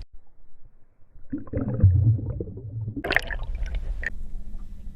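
Water splashing and gurgling, starting about a second in after a moment of near quiet.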